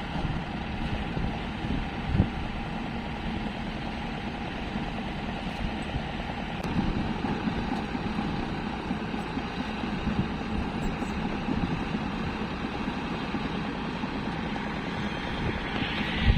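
Hyundai 210LC-7 long-boom excavator's diesel engine running steadily with a low throb, with a single thud about two seconds in.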